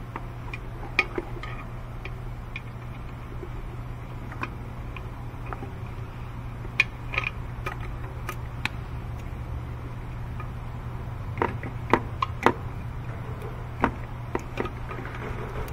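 Metal pliers clicking and clinking as small hoses are worked off an engine's intake manifold. The sharp clicks come scattered and irregular, in a few quick clusters, over a steady low hum.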